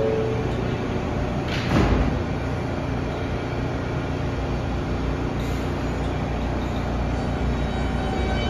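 R160A-1 subway train stopped at a station: its doors slide shut with a loud thud about two seconds in, over the steady low hum of the standing cars. Near the end the traction motors begin to whine in several tones as the train starts to pull away.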